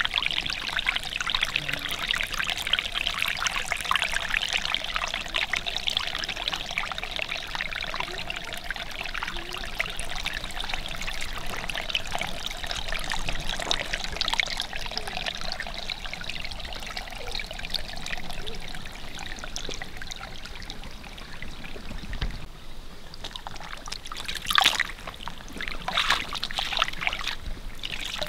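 Shallow stream flowing steadily over stones and leaves. Near the end come a few sharp splashes as water is scooped with a large leaf.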